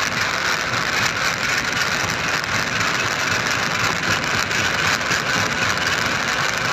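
A machine engine running steadily, without change.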